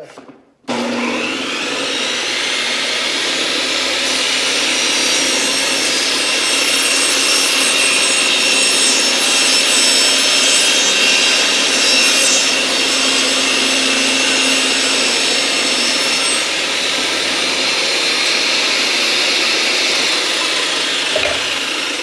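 Benchtop table saw switched on about half a second in, its motor whining up to speed and then running steadily while a wooden board is ripped to width through the blade.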